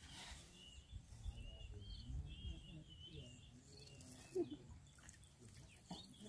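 A small bird repeating short, arching chirps for a few seconds, faint over a low rumble.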